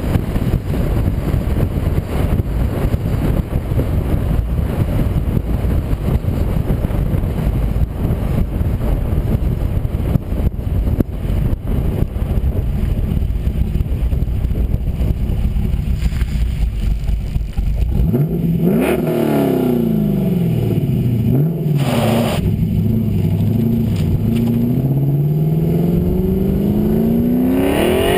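Heads-and-cam LS1 V8 in a Pontiac GTO through a 3-inch true dual exhaust with an H-pipe and Borla Pro XS mufflers, heard from outside the moving car. For about the first two-thirds it drones at cruise under heavy wind rush on the microphone. Then the engine note rises under acceleration, dips once as a shift, and climbs steadily again to the end.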